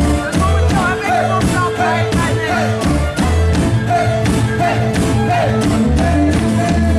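Live band playing a danceable song, with a steady drum beat, bass and guitar, and singing.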